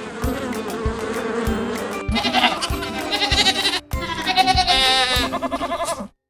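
Background music with a steady beat. From about two seconds in, a farm animal bleats over the music in three bouts, the later calls with a quavering tremble. The sound cuts off suddenly near the end.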